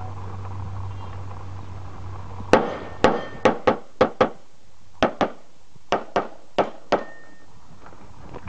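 Semi-automatic pistol firing about a dozen shots, starting about two and a half seconds in, mostly fired as quick pairs about a quarter second apart with short pauses between pairs.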